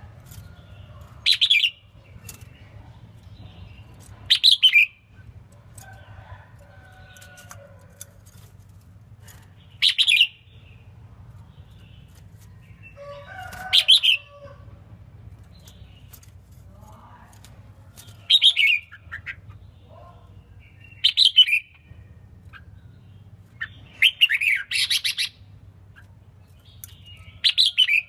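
Red-whiskered bulbul singing short, bright phrases every three to five seconds, with a close cluster of phrases near the end and fainter chirps in between, over a steady low hum.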